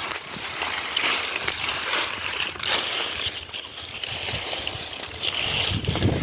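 Shallow water sloshing and splashing in uneven surges, as of someone wading and working by hand through the water.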